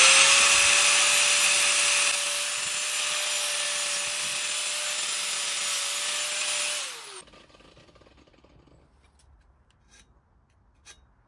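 Angle grinder running under load for about seven seconds, cleaning up the frame metal ready for welding. Its steady whine drops in pitch as it is switched off and winds down, and a few faint clicks follow.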